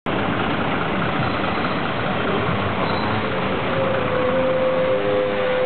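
City street traffic with bus engines running close by, a steady rumble under road noise. A steady whine joins in past the middle.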